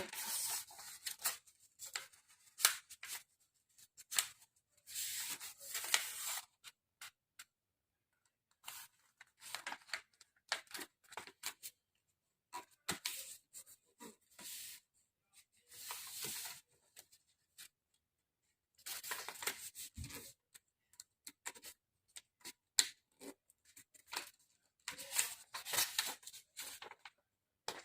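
A4 paper being folded and creased by hand: bursts of crinkling and rubbing with sharp crackles, separated by quiet pauses.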